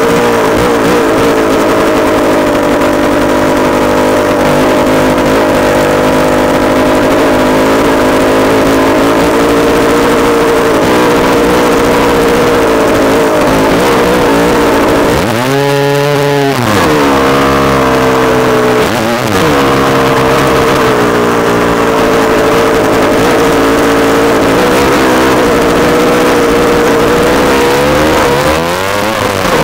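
Honda CR250 two-stroke dirt bike engine running hard at a steady pitch, heard close up from the bike. The revs fall and climb back twice about halfway through, and once more near the end.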